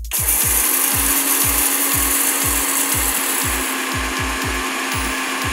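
Electric mixer grinder running steadily with a constant motor hum, grinding dry fenugreek seeds into powder. A low, even beat of background music runs underneath.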